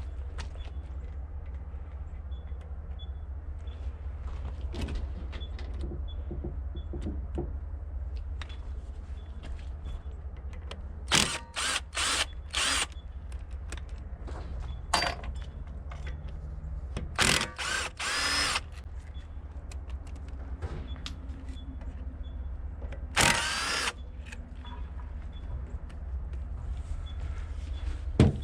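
Power drill run in several short bursts, its motor spinning up and cutting off, as a stubborn part is worked loose, over a steady low hum.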